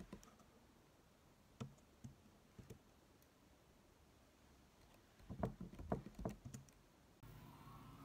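Typing on a slim aluminium keyboard with low-profile keys: a few scattered keystrokes, then a quick run of taps about five seconds in. Near the end a low steady hum takes over.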